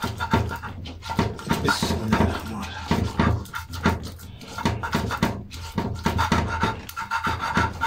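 Silwatta (stone grinding slab and hand stone) at work: the stone roller is rocked and rubbed over the textured stone slab, crushing soaked urad dal. It makes repeated rhythmic scraping and grinding strokes, several a second.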